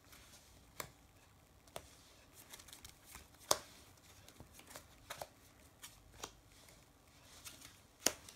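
Sleeved trading cards being handled, slid and set down on a playmat: scattered light clicks and taps, the sharpest about three and a half seconds in and another near the end.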